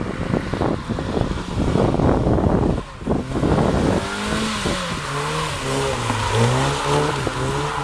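Car engine revving hard, its pitch rising and falling several times over the last few seconds, after a rough, crackling rush of noise in the first half.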